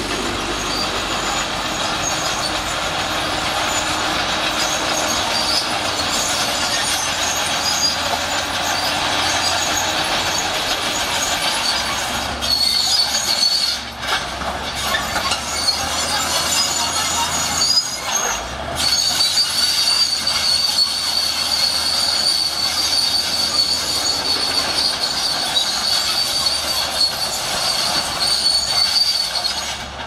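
Shantui SD16 crawler bulldozer working, its diesel engine running under load while the steel tracks clank and squeal as it pushes soil and rocks. A steady high-pitched track squeal comes in about two-thirds of the way through.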